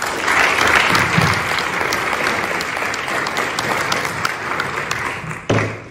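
Audience applauding, a dense patter of many hands clapping that stops suddenly near the end.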